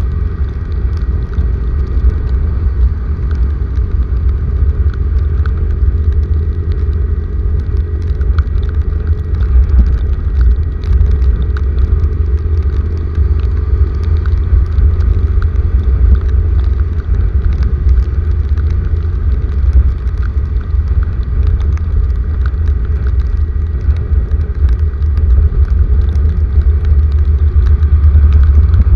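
Heavy rainstorm: a loud, steady low rumble with many scattered sharp ticks of raindrops.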